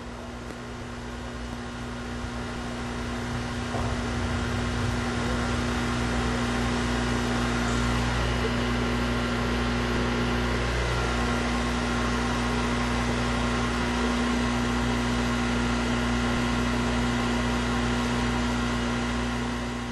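A steady machine-like hum with a constant tone over a low rumble, growing louder over the first few seconds and then holding steady.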